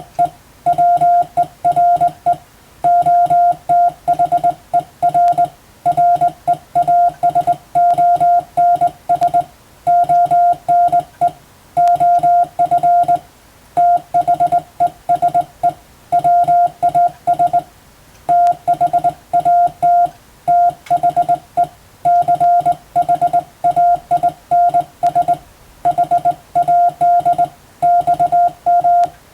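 Morse code sent as a beeping tone of one steady pitch, keyed on and off in short dots and longer dashes, with short gaps between letters and longer ones between words, in a continuous run of characters.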